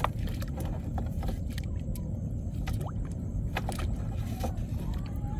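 A small boat's engine running steadily, with scattered light clicks and knocks over the low rumble.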